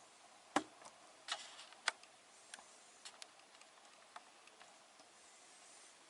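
Irregular sharp clicks and knocks of plastic parts on a Miele W1 washing machine being handled, about a dozen in all. The loudest comes about half a second in, with two more strong ones within the next second and a half, then they thin out to faint ticks.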